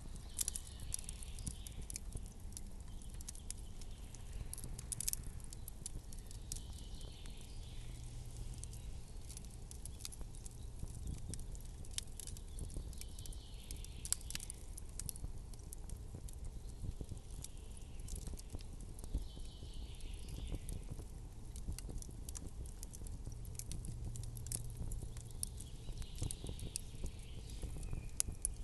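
Campfire crackling and popping in irregular sharp snaps over a steady low rumble, with a soft hiss that swells and fades every five or six seconds.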